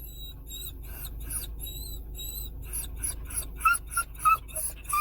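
A dog whining in a long run of short, high-pitched squeaks, several a second, which grow louder and lower in pitch in the last second and a half: the anxious crying of a dog. A low engine-like hum runs underneath.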